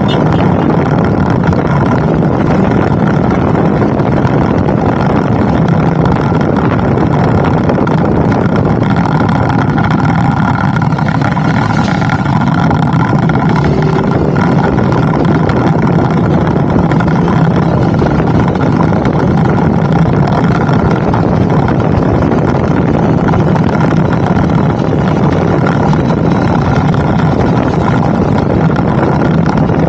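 A vehicle engine running steadily at one unchanging pitch, mixed with a loud rushing noise typical of a moving vehicle.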